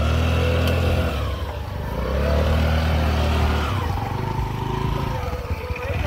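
Small scooter engine revved hard twice, rising and falling, then running lower. The scooter is stuck in deep mud ruts and is being driven out.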